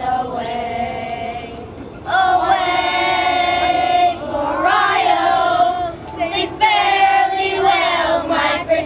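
A group of voices, children's among them, singing together in long held notes with short breaks between phrases.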